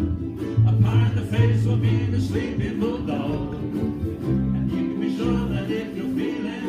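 A group of amateur players strumming ukuleles and guitars together and singing along, with low bass notes changing every second or so.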